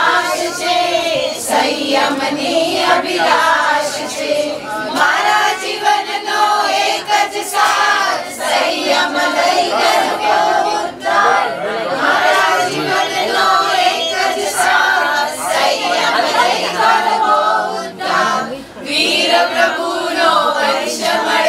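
A group of mostly women's voices singing a devotional song together, without a pause.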